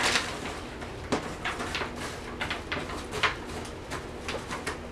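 Frozen sliced baby portobello mushrooms being shaken out of a plastic zip-top bag onto a freeze-dryer tray and spread by hand: crinkling plastic and an irregular patter of small clicks and rustles, with a sharper tap about three seconds in.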